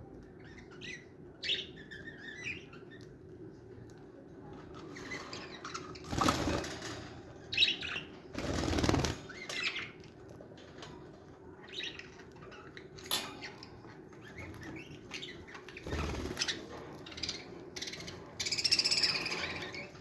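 Aviary budgerigars chirping now and then, with a few short bursts of wing flapping and a louder squawk near the end.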